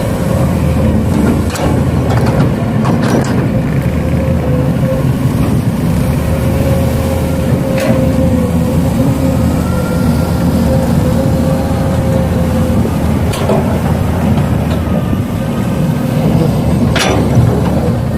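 Motors of radio-controlled model heavy equipment running steadily: a low hum with a constant thin whine, and a few sharp clicks now and then.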